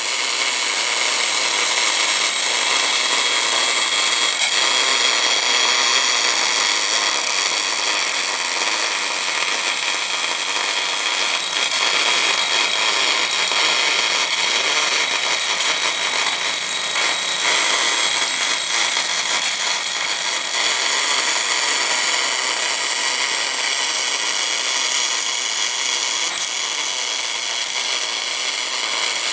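Wire-fed MIG welding arc burning steadily on cast iron, a continuous even hiss with no breaks.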